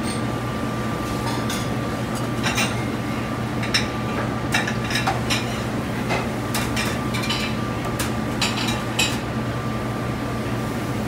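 Metal kitchenware clinking and clattering at irregular moments as a ladle, saucepan, pans and a steel bowl are handled, over a steady hum of commercial kitchen equipment.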